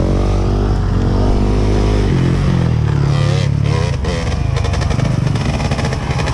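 Off-road enduro motorcycle engine running steadily, then revving higher about two seconds in, its pitch rising and falling after.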